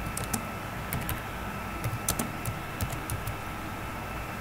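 Computer keyboard being typed on: scattered, irregular key clicks a few at a time over a steady low hiss.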